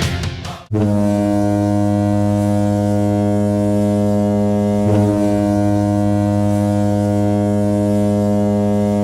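Hockey goal horn sounding one long, deep, steady blast, starting about a second in, with a brief wobble midway, and dying away just after the end.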